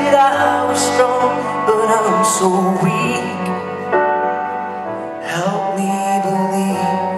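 Slow live band music with a cello, and a singer's voice gliding over held chords.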